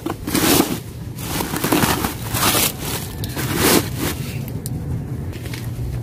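Woven plastic sacks rustling and scraping as a hand pushes and pats them, in about four bursts.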